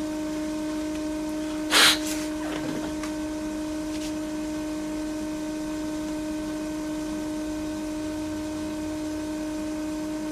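Steady electrical hum holding a few fixed tones, with one short, sharp hiss about two seconds in.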